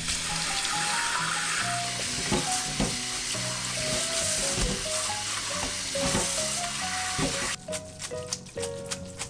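Cold tap water running into a stainless steel mesh colander of cooked somyeon noodles as they are rubbed clean by hand. The water stops near the end, leaving drips and small clinks of the colander. Background music plays throughout.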